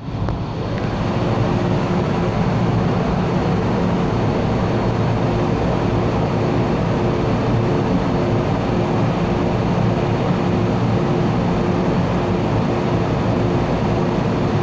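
MTR M-Train electric metro train standing at a platform with its doors open, giving off a steady hum. A faint tone repeats evenly through it.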